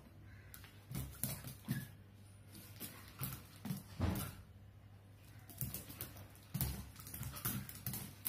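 A small dog scrabbling about on a tiled floor as it spins and pounces: irregular clicks and skitters of claws on tile, with soft thumps from its body hitting the floor, over a steady low hum.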